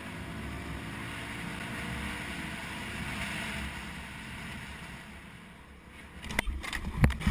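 Motorcycle riding at speed, its engine and a steady wind rush on the helmet microphone. Near the end come several sharp knocks and bangs as the motorcycle collides with a car pulling across in front of it.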